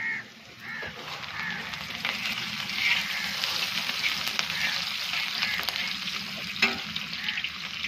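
Sliced onions sizzling as they fry in hot ghee in a large iron karahi, stirred with a long-handled metal ladle that scrapes and clicks against the pan. One sharper knock comes about two-thirds of the way through.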